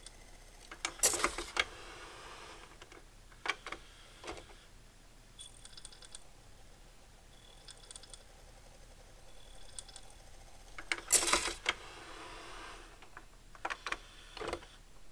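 5-disc CD changer's carousel mechanism working as it changes discs: a clattering burst of plastic clicks about a second in and another about eleven seconds in, with single clicks between them and a quick run of clicks near the end. Faint, brief high whines come between the clicks.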